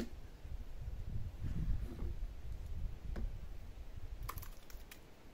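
Pepper paste pulp being pressed through a coarse sieve by hand: low rubbing and scraping noise with a few sharp clicks, several close together near the end.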